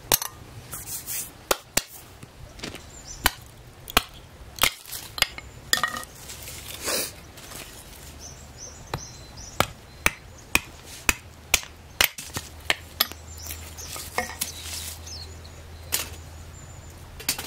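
Batoning a short log: a wooden stick knocks on a blade set into the end of the log to split it into kindling. About twenty sharp knocks come at uneven spacing, with a longer rasping burst about seven seconds in.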